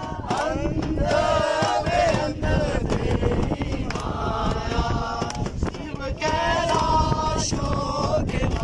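A group singing a chant together, male voices leading, with hand clapping.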